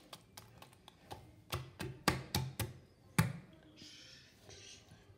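Fingers tapping and knocking against a porcelain bathroom sink, several sharp taps in quick succession from about a second and a half in, the loudest near three seconds. A brief hiss follows about four seconds in.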